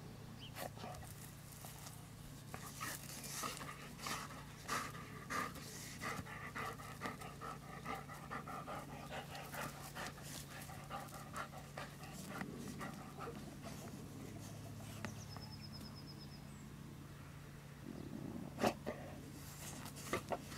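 Dog panting while digging into a molehill after moles, its nose pushed into the soil, with many short scratching and snuffling noises.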